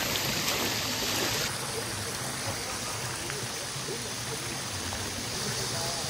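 Shallow mountain stream running over rocks, a steady rushing of water. It drops a little in level about a second and a half in.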